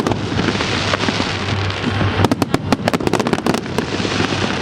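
Aerial fireworks bursting in rapid volleys of bangs and crackles, with dense clusters of sharp reports about two seconds in and again just after three seconds.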